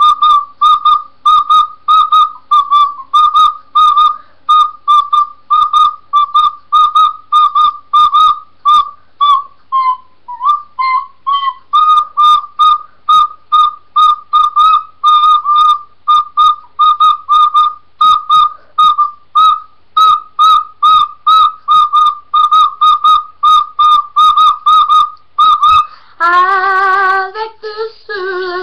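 Soprano recorder played in short, separately tongued notes, about three a second, nearly all on one high pitch, with a brief wavering run partway through. Near the end the playing stops and a child's voice begins singing.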